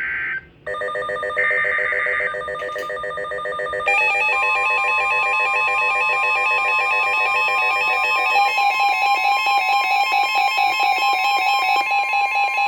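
NOAA Weather Radio SAME data bursts give way to a weather radio's alert alarm, a rapidly pulsing warble of several tones. About four seconds in, the steady NWS 1050 Hz warning alarm tone joins it and holds almost to the end. Together they are the alert signal for a tornado warning.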